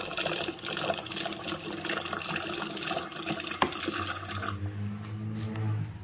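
Water running from a Maytag refrigerator's door dispenser into a ceramic mug, flushing a newly installed water filter. The stream stops sharply about four and a half seconds in, and a low steady hum remains.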